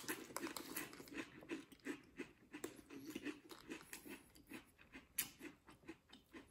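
A person chewing a Lay's potato chip with the mouth closed: faint, irregular crunches that grow sparser toward the end.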